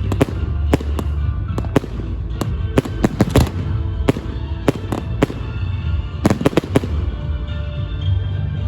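Fireworks going off in an irregular series of sharp bangs, about one or two a second, over music.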